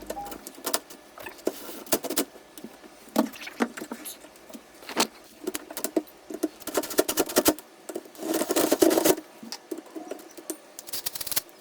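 Irregular clicks, taps and knocks of hand tools working on wood, with about a second of denser scraping some eight seconds in.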